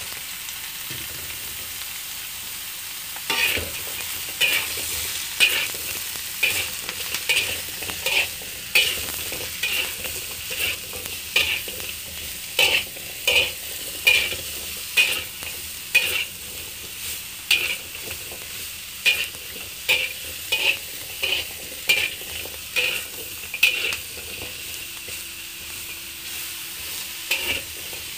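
Sliced bitter melon frying in oil in a wok, sizzling steadily, while a metal fork stirs it, scraping across the pan roughly every half to one second. The stirring pauses for the last few seconds, leaving only the sizzle.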